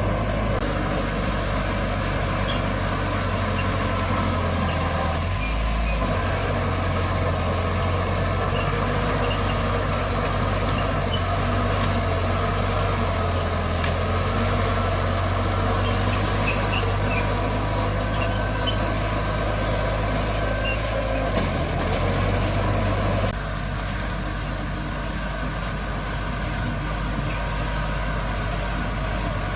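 Heavy diesel earthmoving machinery running steadily under work, with a deep, even engine note. About 23 seconds in the deep note stops and the sound drops to a quieter running noise.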